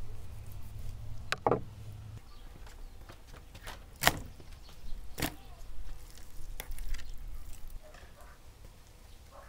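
A handful of sharp knocks and clicks, the loudest about four seconds in, over a low hum that stops about two seconds in.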